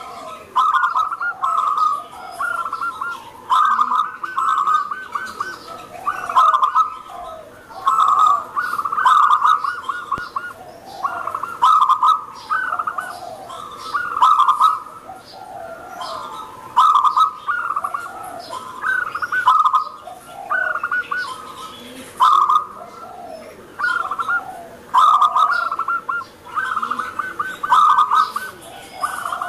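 Zebra dove (perkutut) singing repeatedly: phrases of rapid staccato cooing notes, one after another every one to two seconds.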